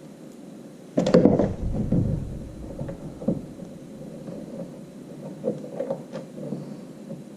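Handling noise from work on a kayak: a sudden loud bump with a hollow rumble about a second in, then scattered light clicks and taps of small hardware being handled.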